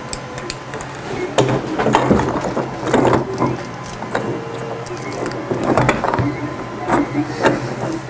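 Hex key and pocketknife clicking, knocking and scraping against a bolt and nylon lock nut in a 3D-printed PLA handle as the nut is forced tight, in irregular bursts, over a steady low hum.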